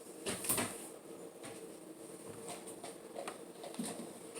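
Small plastic Lego pieces clicking and rattling as loose bricks are handled and sorted through, with a couple of sharper clicks about half a second in and faint scattered ticks after.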